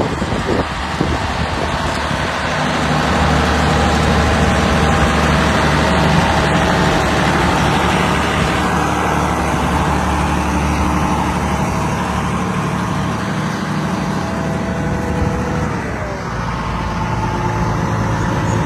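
Farm tractor engine running steadily, with its speed dropping about three-quarters of the way through.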